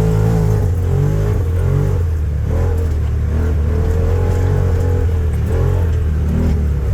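Engine of a turbocharged Can-Am Defender Limited side-by-side running under load, a steady deep drone with small shifts in pitch.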